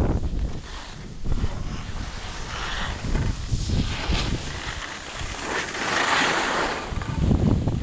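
Wind buffeting the microphone with a rushing scrape of snowboards sliding and carving over packed snow. The scrape swells twice, about three and six seconds in.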